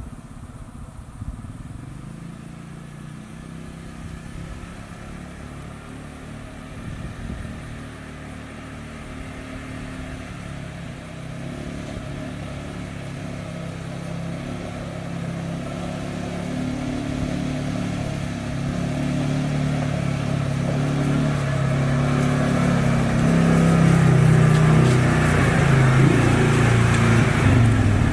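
A motor vehicle's engine drawing closer, growing steadily louder throughout, its low note shifting in pitch as it goes.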